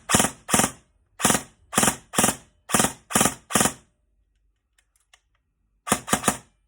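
Rebuilt Specna Arms E07 airsoft electric rifle (E&C gearbox, 13:1 gears, Tokyo Marui high-torque motor) test-firing on a Gate Aster set to 3-round burst: a quick string of short sharp bursts, about two a second, then a pause of nearly two seconds and three more bursts near the end.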